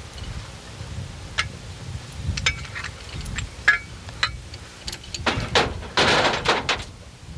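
Metal clicks and knocks of hardware being handled at a truck-mounted jib as the sheave wheel assembly is worked on, with a louder rushing, scraping noise about five seconds in that lasts nearly two seconds, over a low steady rumble.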